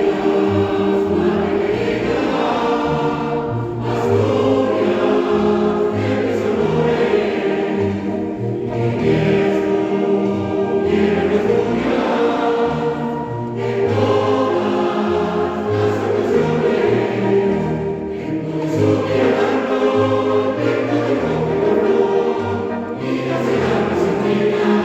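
A choir singing a slow religious march in long held phrases, each breath break coming about every four to five seconds.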